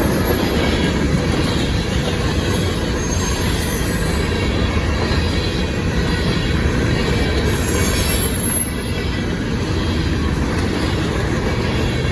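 Grain train's freight cars rolling past: a steady rumble of steel wheels on rail, with faint high wheel squeals now and then.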